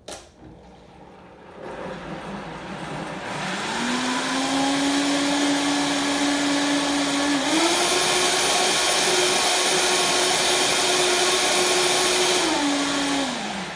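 Countertop blender motor spinning up a couple of seconds in and running steadily. It steps up to a higher speed about halfway through, then winds down and stops near the end. It is blending a hot smoothie of flax seed, pumpkin seed and protein powder.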